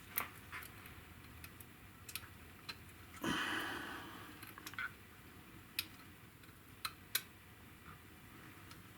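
Scattered light clicks and taps of cables and small parts being pushed and fitted into an RC crawler's chassis, with a brief rustling scrape about three seconds in.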